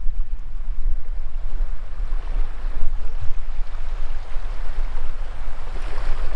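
Small waves washing in over sand at the water's edge, the rush swelling about two seconds in and again near the end, over a heavy, gusting wind rumble on the microphone.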